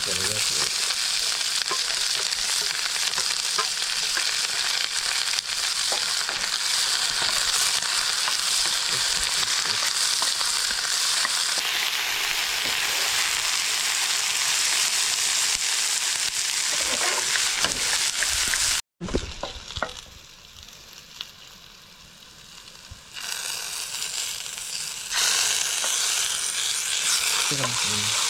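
Onion frying in hot oil in a pan, a steady loud sizzle with stirring. The sizzle cuts off abruptly about two-thirds of the way through, stays much quieter for a few seconds, then returns near the end.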